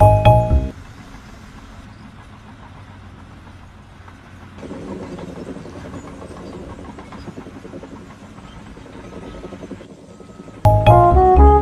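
A short bell-like jingle, then a steady low engine running, rougher and a little louder from about five seconds in; the jingle comes again near the end.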